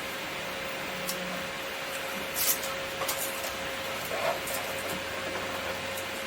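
Masking tape being pulled off the roll and pressed onto the plastic, in a few short tearing rasps about two and a half, three and four seconds in, over a steady low hum.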